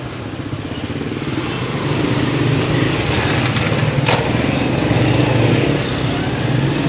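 Small motorcycle engines running at low speed, a steady drone that grows louder from about two seconds in as a second motorcycle passes close by. A single sharp tick about four seconds in.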